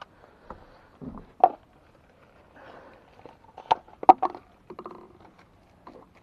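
A few sharp clicks and knocks with some rustling, the loudest pair about four seconds in: a discarded plastic worm container being picked up and handled.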